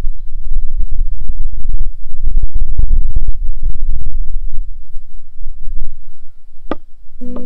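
Wind buffeting the microphone: a loud, uneven low rumble that swells and dips in gusts, with a single sharp click near the end.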